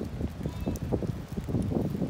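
Footsteps of a person walking on wet grass, a quick, irregular series of thuds.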